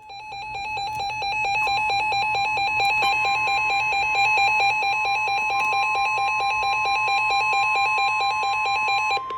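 Emergency alert tones for a severe thunderstorm warning: a rapidly pulsing electronic beep, joined about a second and a half in by a steady tone that carries on after the pulsing stops near the end.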